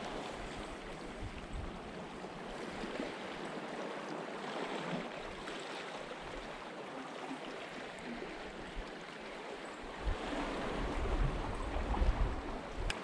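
Sea waves washing against a rocky shore, a steady rush, with low rumbles and a few louder swells in the last few seconds.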